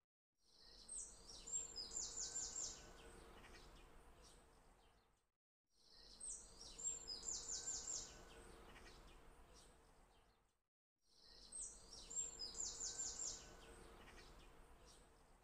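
Faint looped birdsong ambience. A quick cluster of short, high chirps fades in and out, and the same loop repeats about every five seconds, three times over.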